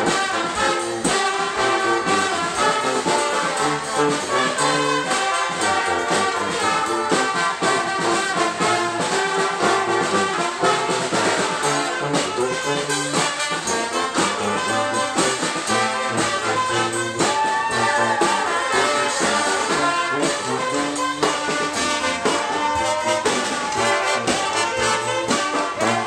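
A street brass band playing loud, up-tempo music live: trumpets, trombones, saxophones and sousaphone over marching drums.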